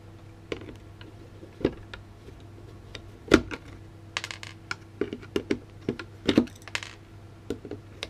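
Scattered sharp clicks and taps of small screws and metal and plastic parts being handled as the screws come out of an AEG battery pack's circuit board and heatsink, with two louder knocks, about a third of the way in and again near three quarters.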